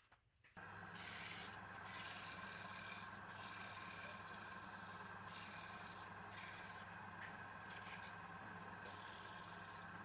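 Wood lathe running, with something rubbing steadily against the spinning wood over the motor's even hum; it starts about half a second in.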